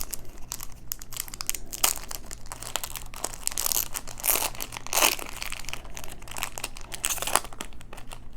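Paper wrapper of a baseball card pack being crinkled and torn open by hand: an irregular crackle with several louder rips and scrunches.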